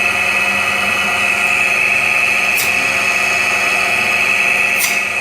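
Electric meat-cutting saw running steadily with a high whine, with two short scraping sounds, about halfway through and near the end, as the blade goes through the chicken.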